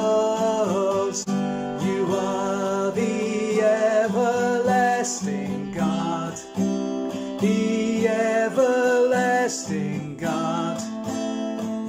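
A man singing a worship song to his own strummed acoustic guitar.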